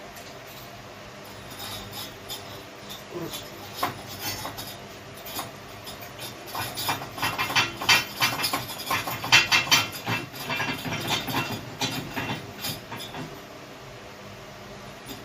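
Hard objects clinking and knocking in quick, irregular succession, busiest in the middle and dying away near the end, over a faint steady hum.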